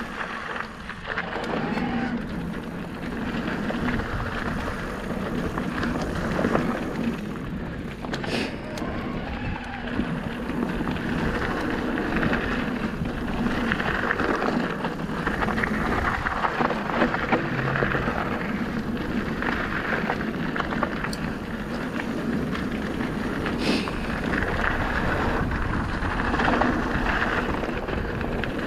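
Merida eOne-Sixty 800 electric mountain bike descending a loose dirt and gravel trail: steady tyre noise with dense small rattles and clicks over the rough surface, and wind rushing over the action camera's microphone.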